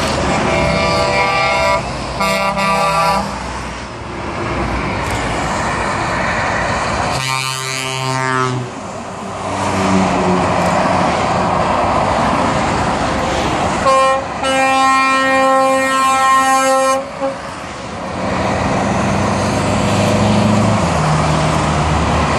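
Trucks passing on a motorway below, sounding air horns over steady traffic noise: two short blasts near the start, one that drops in pitch as it passes beneath about seven seconds in, and a long two-tone blast in the middle.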